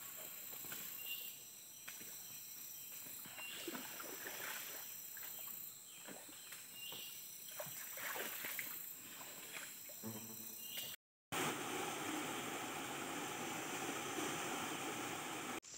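Tropical forest ambience: a steady high-pitched insect drone with a short call repeating every two to three seconds. About eleven seconds in it cuts off and gives way to a louder, even rushing noise.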